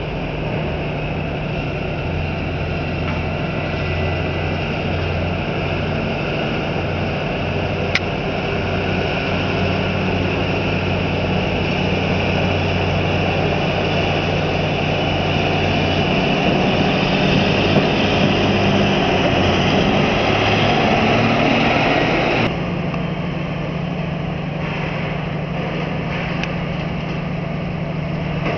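Diesel engine of a port terminal tractor towing a semi-trailer, its rumble and running noise growing louder as it passes, then cutting off suddenly about three quarters of the way through. A steady low hum runs underneath, and there is a single sharp click near the start.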